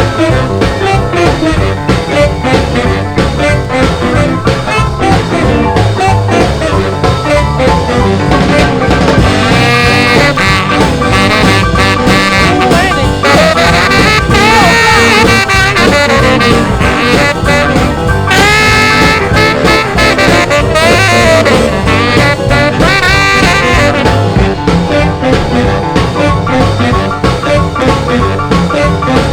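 Rhythm-and-blues record playing an instrumental passage: horns over a steady beat, with a lead horn line in the middle.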